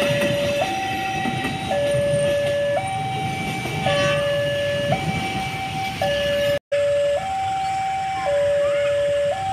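Railway level-crossing alarm sounding: an electronic two-note chime alternating between a lower and a higher tone about once a second, over the rumble of a passing passenger train. The sound drops out for an instant about two-thirds of the way through, then the alarm carries on.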